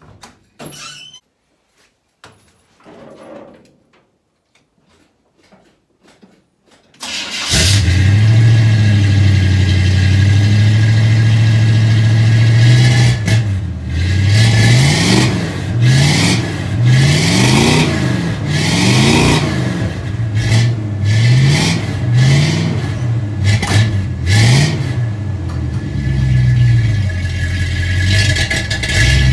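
Old Chevrolet pickup's engine starting about seven seconds in, after a few faint knocks, and running at a high idle. It is then revved again and again, about one blip a second, before settling back to a steady idle near the end.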